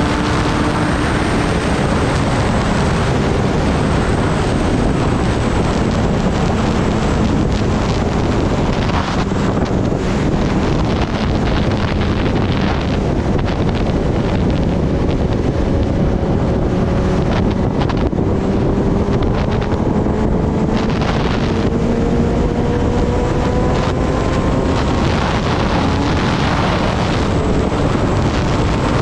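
Kawasaki Ninja ZX-10R inline-four sport bike riding at speed, its engine note drifting slowly up and down under heavy wind rushing over the microphone.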